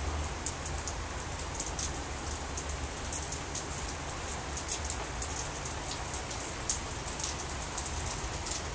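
Heavy rain pouring down steadily, a dense hiss with many sharp drop ticks spattering on surfaces close by.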